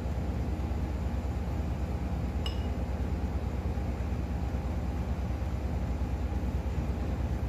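A steady low hum, with one light clink of a small glass container about two and a half seconds in.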